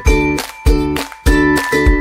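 Background music with a steady beat: strong bass hits about every 0.6 seconds under a high melody of held notes.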